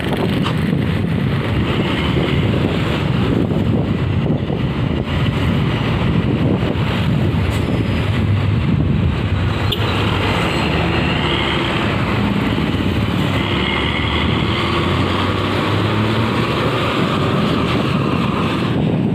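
Steady road traffic noise: vehicle engines running close by while following a coach bus, with a wavering higher whine that comes and goes in the second half.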